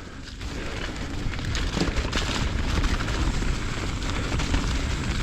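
Steady rushing noise of a mountain bike ride: wind buffeting the on-bike microphone over the rumble of tyres rolling on the dirt trail.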